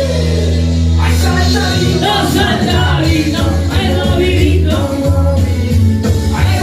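Loud music with singing over a heavy, steady bass.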